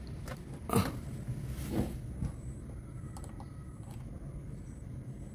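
Faint clicks and knocks of fingers handling the plastic cabin dome-light housing while the bulb is seated back in its holder, with two slightly louder knocks about a second in and again a second later, over a low steady hum.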